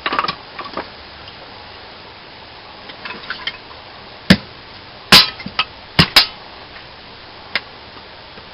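A knife blade chopping into a piece of wood: light knocks and clatter, then about six sharp, irregularly spaced hits from about four seconds in.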